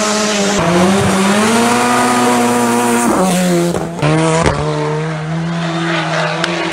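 Ford Sierra Cosworth rally car's turbocharged four-cylinder engine driven hard, its pitch climbing through a gear and then dropping back at a shift, heard over several edited passes. A few sharp cracks come near the end.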